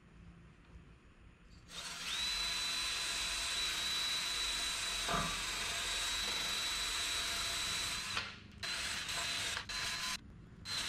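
Cordless drill running against a rusty exhaust pipe, cleaning up around a cracked exhaust chamber to prepare it for welding. It starts about two seconds in with a steady high whine and scraping, stops after about six seconds, then runs in a few short bursts near the end.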